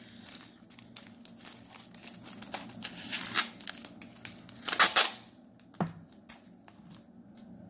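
Scotch masking tape being pulled off the roll and pressed around a crumpled tin-foil form: a crackly, sticky peeling with two louder rips, about three and a half and five seconds in, then quieter handling. The tape is old, which makes it prone to ripping.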